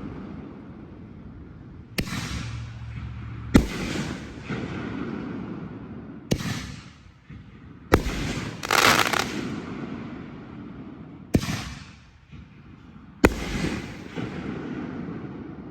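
5-inch canister firework shells firing and breaking: six sharp booms, a second or two apart, each followed by a rumbling echo. A longer, denser burst comes a little before the middle.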